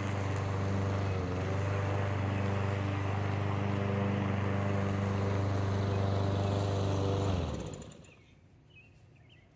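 A freshly rebuilt single-cylinder Briggs & Stratton engine on a push lawn mower runs steadily while mowing grass. It stops abruptly about seven and a half seconds in, and faint bird chirps follow.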